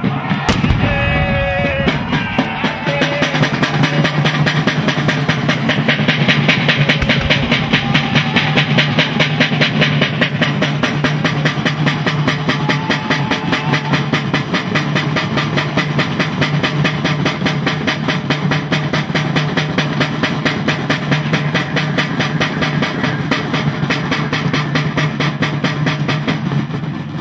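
Military drums beating a fast, steady roll, with a bang and shouting right at the start.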